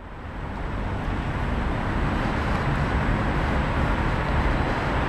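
Steady city traffic noise, a dense low hum of road traffic, fading in from silence over about the first second and then holding level.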